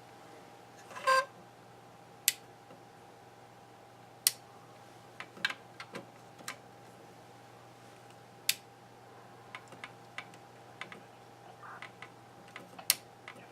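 Scattered sharp clicks and taps of small parts and tools being handled at an electronics bench, with one short pitched beep about a second in, over a faint steady hum.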